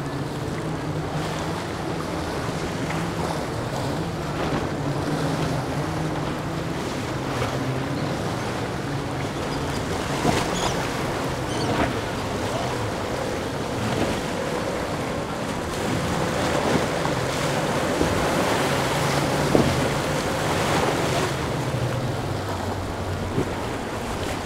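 Triple Mercury 350 outboards on a Boston Whaler 370 Outrage running at speed through rough inlet chop, a steady engine hum under the wash of waves and spray off the hull, with wind on the microphone.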